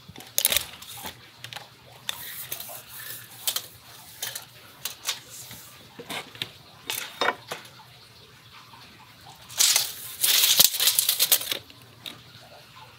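Steel tape measure and speed square being handled on wooden boards: scattered clicks, light knocks and small metallic rattles, with a louder rattling stretch of about two seconds near the end.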